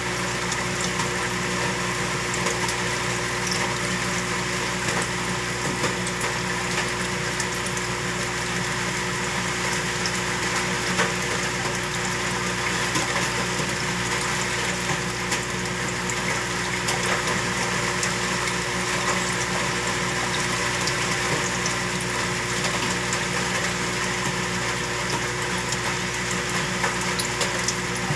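Saltwater aquarium water pump running steadily: a constant motor hum under the rush and bubbling of circulating water.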